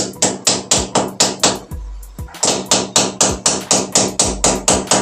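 Hand hammer striking repeatedly at the wall, about four quick, even blows a second, with a short break a little before two seconds in before the blows resume.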